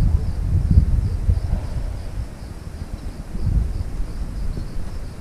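Insects chirping in a steady pulsing rhythm, a few pulses a second, over a louder low rumble that rises and falls and eases off in the middle.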